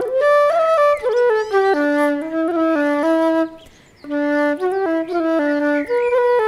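Background music: a single melody line of short stepped notes, pausing briefly a little past halfway.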